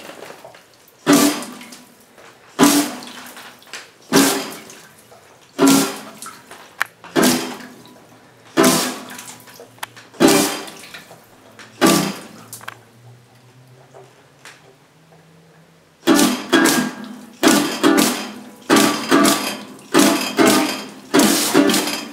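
Classical guitar playing chords, about one every second and a half, each ringing out and fading. Past the middle comes a quieter stretch with water running from a kitchen tap, then quicker notes take over for the last third.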